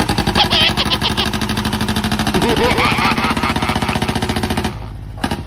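A fast, even mechanical rattle like an engine or jackhammer running, with short voice sounds over it; it drops away about four and a half seconds in.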